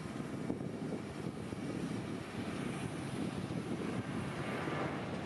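Airliner engines running, heard as a steady low rumble with a fainter hiss above it.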